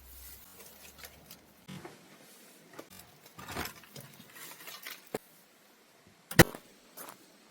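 Small handling noises, rustling and light knocks, with one sharp, loud click or knock about six seconds in.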